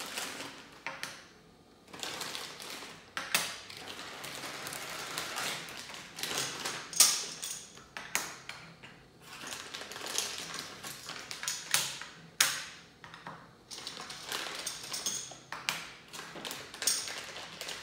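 Plastic square counting tiles being taken from a plastic bag and set down on a tabletop one at a time: irregular light clicks and taps, with the bag crinkling in between.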